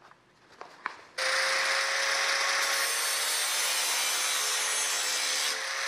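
Angle grinder with an abrasive disc starts about a second in and runs steadily, grinding a metal aircraft rib's nose down to an arc, with a steady whine under the grinding noise.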